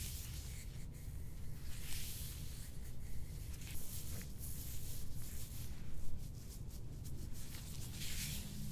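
Soft rubbing and scraping strokes over skin during hands-on soft-tissue work: several drawn-out swishes, the clearest about two seconds in and near the end, over a steady low hum.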